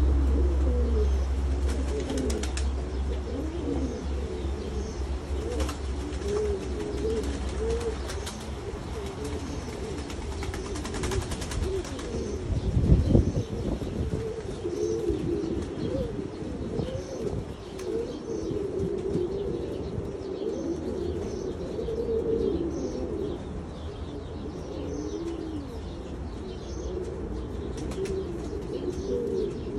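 Domestic pigeons cooing, several at once and without pause. There are faint high chirps about once a second, and a dull bump about halfway through.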